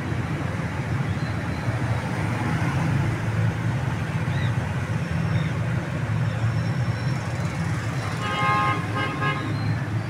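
Steady low rumble of road traffic. Near the end a vehicle horn sounds for about a second, broken into two or three short honks.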